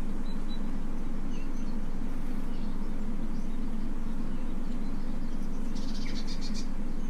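A steady low hum, with faint short bird chirps over it and a brief flurry of chirping near the end.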